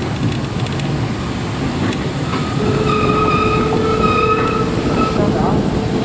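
Train running, with a steady tone of several pitches held for about three seconds in the middle.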